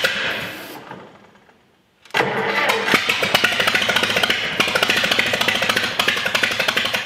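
1964 Minneapolis Moline M602 gasoline tractor engine firing on aerosol spray fed into its intake. It dies away over the first two seconds, catches again suddenly and runs for about five seconds, then begins to die at the end. It fires but won't keep running on its own, which the owner puts down to it not getting any fuel.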